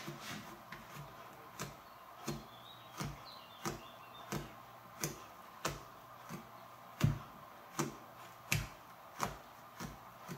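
Hand pressing rhythmically into a big bowl of fluffy slime made with glue and shaving foam, each press giving a short, sharp squelching click, about three every two seconds, with the loudest about two-thirds of the way through.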